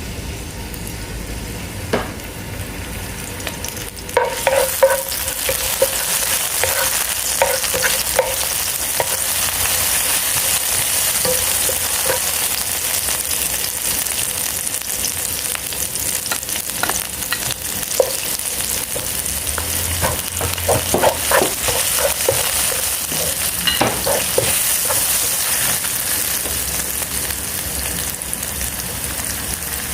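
Food sizzling in a hot pan as it is stir-fried, with a spatula repeatedly clinking and scraping against the pan. The sizzle gets louder about four seconds in.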